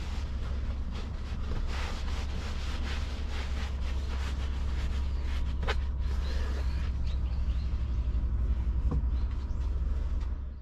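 A thick black felt sheet rustling and scraping as it is rolled up by hand on a vinyl cargo floor, with a sharp click about halfway through, over a steady low wind rumble on the microphone. Everything fades out at the end.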